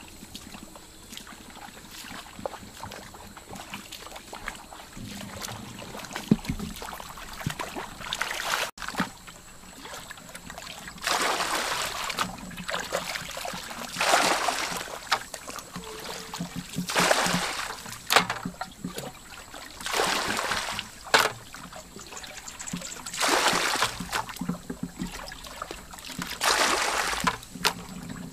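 Water splashing and sloshing as hands grope and scoop through shallow muddy water while fishing by hand, in repeated splashes every second or few seconds from about a third of the way in. Before that, quieter rustling and steps through grass.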